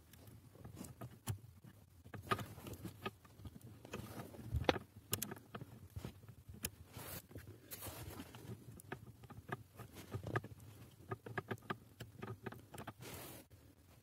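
Faint, scattered small clicks, taps and rustles of hands working the pivot pin out of a clutch pedal return-spring assembly, with one louder low knock a little under five seconds in.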